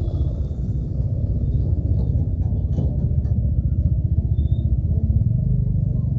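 Hero XPulse 200's single-cylinder engine running at low road speed, a steady low engine note that evens out near the end.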